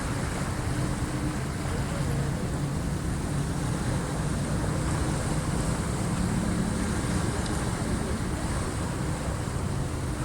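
Sea waves washing in steadily on the incoming high tide, a continuous rushing wash with a low steady hum underneath.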